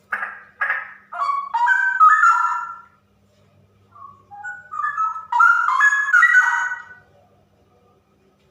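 Female straw-headed bulbul (cucak rowo) singing two loud phrases of rapid warbled notes, each about three seconds long, the second starting about four seconds in.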